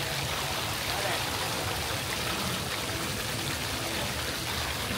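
Steady running water at a pond.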